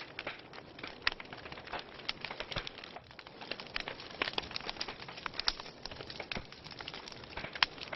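Wood fire burning in a fireplace, logs crackling with irregular pops and snaps over a soft hiss; a sharp pop about a second in and the loudest near the end.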